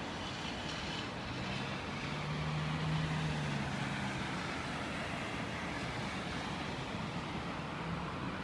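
Steady distant city traffic noise, with a low engine hum that swells and fades a couple of seconds in.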